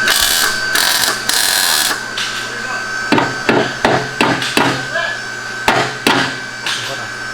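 A couple of bursts of hiss, then from about three seconds in a quick series of hammer blows, roughly four a second, knocking a part into place on a car being converted to all-wheel drive.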